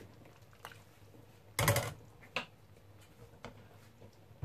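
Ladle stirring broth in a stainless steel stockpot: a few light clicks against the pot, with one louder, brief clatter about one and a half seconds in.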